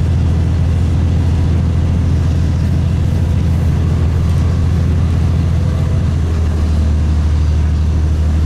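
Steady low rumble of a Stadler Citylink tram-train heard from inside the passenger cabin, running at about 75 km/h and picking up speed.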